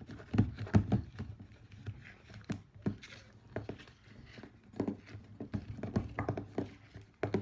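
A utensil knocking and tapping against a bowl as shea butter and fenugreek oil are stirred together by hand, in irregular knocks, a few a second at times.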